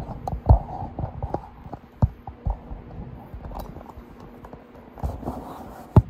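Irregular clicks and knocks, with a few louder thumps, from hands and tools working at a motorcycle's plastic side fairing.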